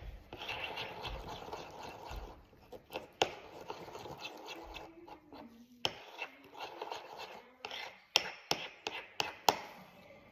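A utensil stirring and scraping a thick oil base mixed with essential oils, in stretches of scraping strokes with short pauses. Several sharp clicks come in the second half, as the utensil knocks against the container.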